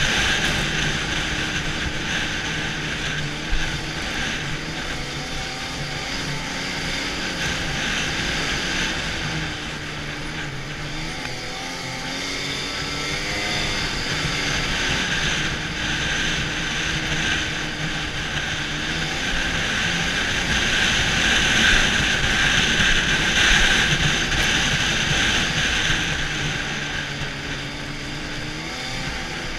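Arctic Cat snowmobile engine running along a trail, its pitch rising and falling as the throttle changes, over a constant hiss. There is one brief knock about three and a half seconds in.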